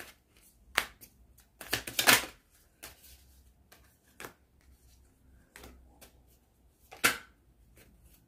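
A deck of oracle cards being shuffled by hand, in short bursts of card snapping and riffling with pauses between them. The loudest bursts come about two seconds in and again near seven seconds.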